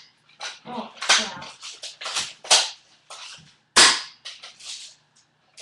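R73 airsoft pump-action shotgun being worked and fired: a string of sharp plastic-and-metal clacks and snaps at uneven spacing, the loudest single snap about four seconds in.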